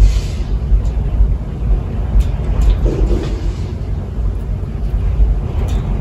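Strong wind blowing in gusts: a loud, low rumble that swells and eases, with a few faint clicks.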